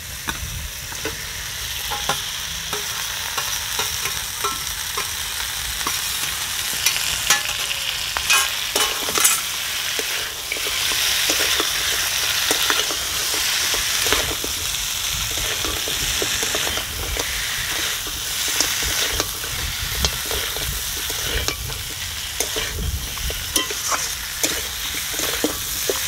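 Fish heads tipped into a karai of spiced potatoes, sizzling as they fry in oil, with a metal spatula scraping and knocking against the pan as it stirs them. The sizzle grows louder a couple of seconds in and again about ten seconds in.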